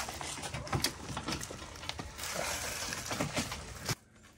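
Crunching and rustling of dry fallen leaves and grit under the wheels of a Makita battery-powered wheelbarrow being moved along a yard path, with scattered clicks and knocks. It cuts off abruptly near the end.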